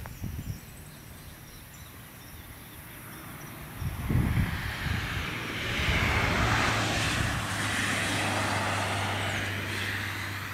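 A vehicle passing by: its noise swells from about four seconds in, peaks, and fades near the end, with a steady low hum under it while it is closest.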